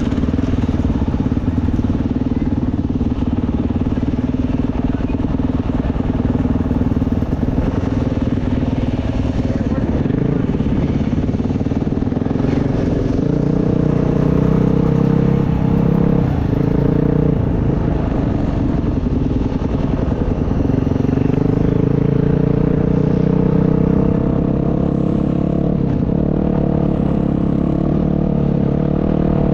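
Dirt bike engine running at low, fairly even revs. The pitch shifts about halfway through and climbs slowly over the last several seconds.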